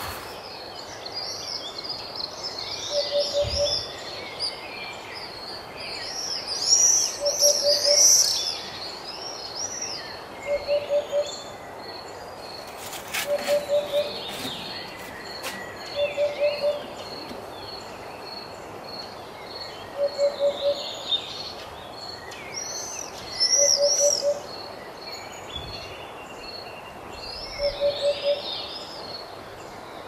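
Wild birds singing, with several songbirds chirping and trilling. Over them a low hooting call of four quick notes repeats every three to four seconds and is the loudest sound.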